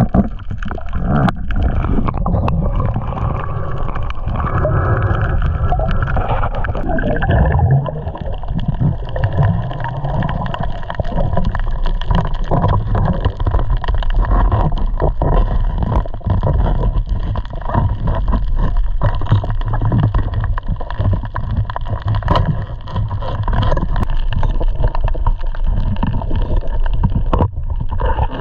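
Loud, continuous churning water noise with many small splashes or knocks throughout.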